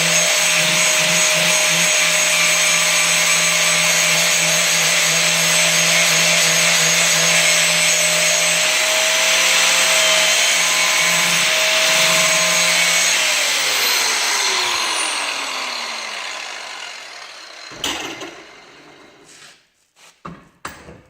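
Angle grinder grinding the cutting edge of a steel mower blade: a loud, steady whine with a rasping hiss. About 13 seconds in it is switched off and winds down, the whine falling in pitch. A sharp clank follows, then a few light knocks near the end.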